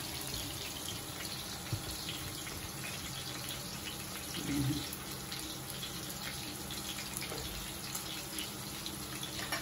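Tanigue (Spanish mackerel) steaks sizzling steadily in butter and oil in a frying pan.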